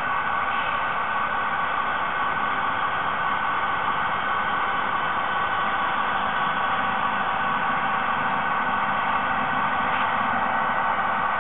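Three HO-scale model diesel locomotives with DCC sound decoders running together, their small onboard speakers playing a steady diesel engine sound over a constant hiss.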